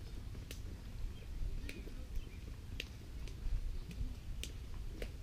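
Outdoor ambience: a steady low rumble of wind on the microphone, with about half a dozen short, sharp clicks scattered irregularly through it.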